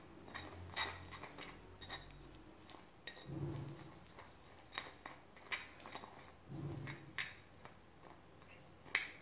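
Metal spoon stirring and scraping a thick paste of date-seed powder and castor oil in a small ceramic bowl, with irregular clinks of the spoon against the bowl and a sharper clink near the end.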